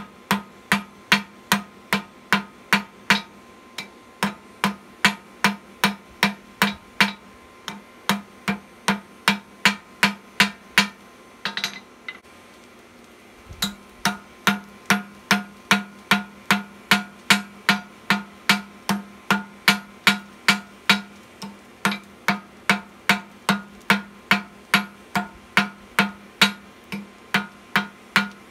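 A hand hammer strikes hot steel bar on an anvil in a steady rhythm of about two blows a second, each blow ringing. This is the blacksmith drawing out thin round stock. About twelve seconds in there is a quick flurry of light taps and a short pause, then the steady hammering resumes.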